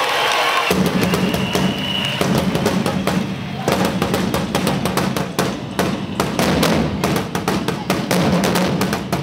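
A group of wooden rope-tensioned drums beaten with sticks, playing a dense, fast rhythm together; it starts about a second in.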